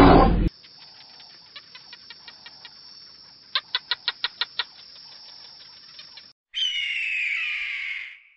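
Bird chirping: a faint run of short sharp high notes with a quick burst of about eight louder chirps midway, then a loud harsh call sliding down in pitch near the end.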